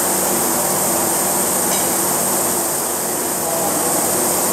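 Steady hum and hiss of a robotic pick-and-place cell running, a Fanuc M-1iA delta robot picking candies off a rotating dial, with a few faint ticks a little under two seconds in.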